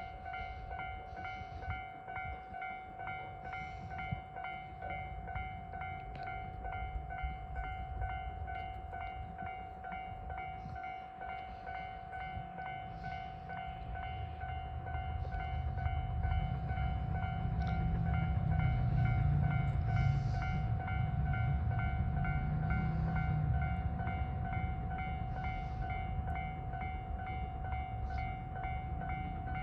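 Japanese level-crossing warning bell ringing in a steady repeating pattern as a steam-hauled train approaches. The train's low rumble builds from about halfway and is loudest a little past two-thirds of the way in.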